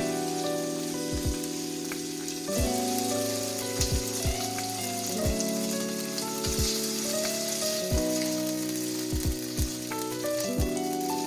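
Food sizzling in a hot frying pan, under background music of held chords that change every two or three seconds, with soft low thumps now and then.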